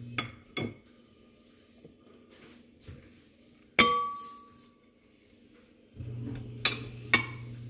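Glass mixing bowl clinking as spices are tipped into it: a few light knocks, then one sharp clink a little under four seconds in that rings on briefly. A low steady hum drops out near the start and comes back about six seconds in.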